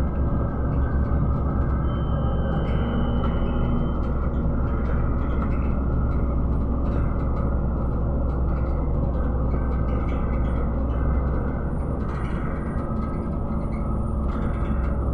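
Interior ride noise of a PKTS-6281.01 'Admiral' trolleybus under way: a steady low rumble of the running gear and road. A brief high whine comes in about two seconds in.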